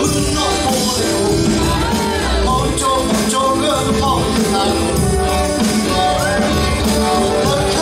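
Live rock band playing a song: a male lead singer sings in Karen over electric bass, electric guitar and drums.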